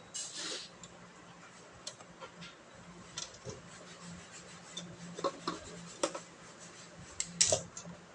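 Hands handling objects: a short rubbing scrape at the start, then scattered light clicks and knocks, thickest near the end, over a faint steady hum.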